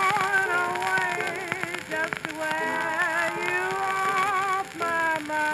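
1924 Paramount 78 rpm blues record playing: a woman singing a blues with small-band accompaniment, over the steady surface hiss of the shellac disc.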